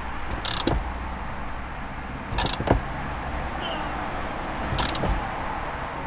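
Socket ratchet tightening a steering wheel's centre bolt: three short bursts of ratchet clicking, about two seconds apart, over a low steady background rumble.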